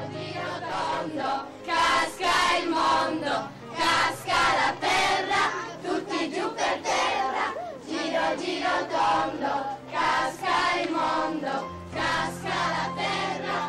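A group of children singing together in chorus, in short rhythmic phrases.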